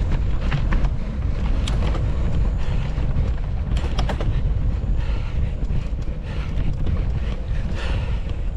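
Wind buffeting a GoPro Hero 11 Black's microphone as a mountain bike rides at speed, a steady low rumble. A few sharp clicks and rattles from the bike cut through it, a cluster about four seconds in.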